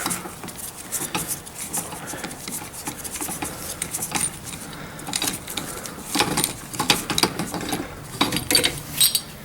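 Irregular clicks, clinks and light rattles of small hard parts being handled, as a paint spray gun is fitted and readied for priming.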